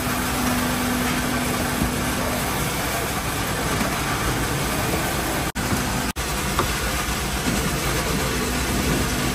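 A small electric-motor-driven workshop machine runs steadily: a dense mechanical noise with a steady low hum. It cuts out briefly twice a little past halfway.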